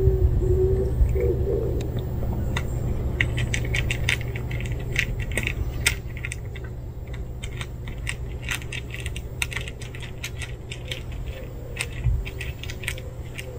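A cat crunching dry kibble from a plastic tray: quick, irregular crisp crunches and clicks, thickest through the middle.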